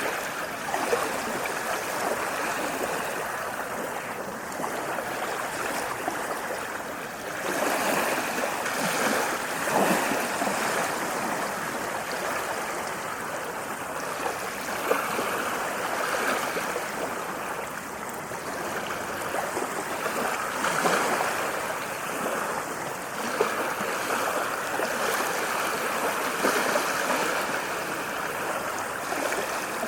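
Ocean waves: a continuous rush of water that swells louder every five or six seconds as each wave comes in.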